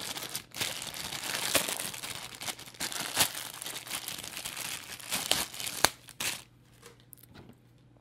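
Clear plastic bag crinkling and crackling as hands handle it and take out the cables inside, stopping about six seconds in.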